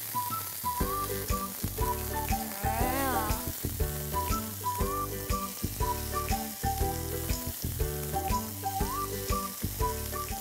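Chicken fillets sizzling in hot oil in a frying pan, together with background music with a steady beat.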